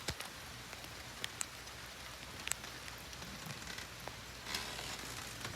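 Steady rain falling, with single drops ticking sharply on a nearby surface and a brief heavier patter about four and a half seconds in.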